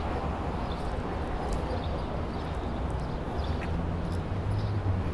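City street ambience: steady traffic noise with a low engine hum that grows louder near the end, and a few faint clicks.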